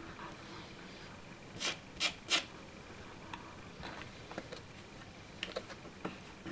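Three short scraping rubs in quick succession about two seconds in, then a few light clicks and ticks, as a small model building is pressed and shifted about by hand on a model railway baseboard.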